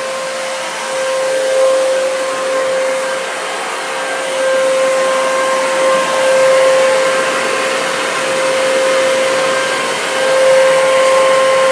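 Vacuum cleaner running, a steady motor whine over a rush of air, its loudness rising and falling every few seconds.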